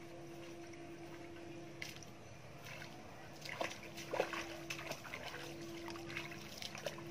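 Bare feet splashing through shallow muddy floodwater, a run of wading steps starting about halfway in, the loudest splash soon after; a faint steady hum runs underneath.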